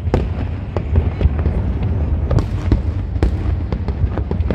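Fireworks display: aerial shells bursting, with irregular sharp bangs and crackles over a steady low rumble.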